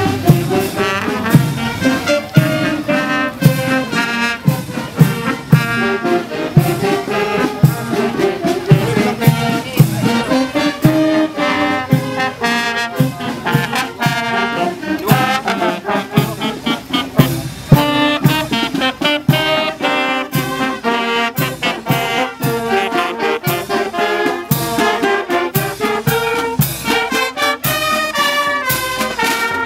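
Upbeat music led by brass instruments over a steady beat of about two strokes a second.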